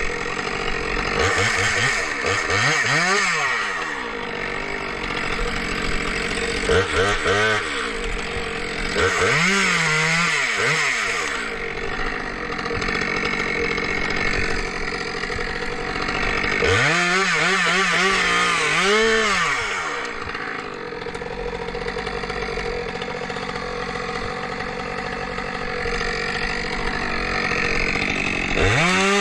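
Two-stroke chainsaw revving up and back down about five times, each rev lasting one to three seconds, with the engine idling in between.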